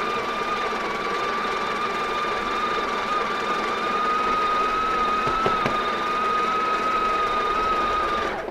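Built-in conical burr grinder of a Breville Barista Express espresso machine running, grinding a second single dose of beans into the portafilter. It makes a steady high whine over a grinding noise and stops abruptly just before the end.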